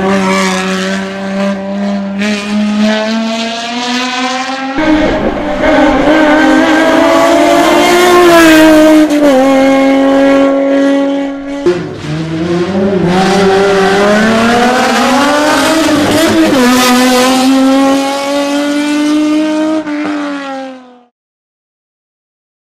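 Lucchini sports-prototype race car's engine at high revs. Its pitch climbs, drops sharply and climbs again as it accelerates hard through the gears, then falls away and fades out near the end.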